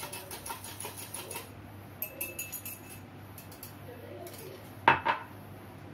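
An egg being beaten in a drinking glass: quick, even clinks of a utensil against the glass, about five a second, stopping about a second and a half in. Near the end come two sharp knocks close together.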